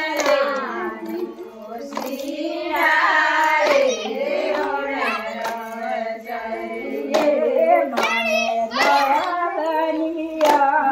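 A group of women singing a Gujarati Adivasi folk wedding song (lagna geet) together, with hand claps.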